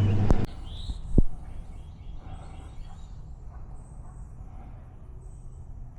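Quiet outdoor background: a low steady hum with a few faint bird chirps, and a single knock a little after a second in.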